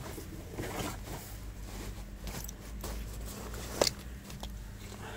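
Fabric rustling close up: a camouflage fleece jacket being handled and rubbing at close range, in short scrapes, with one sharp click a little before the end.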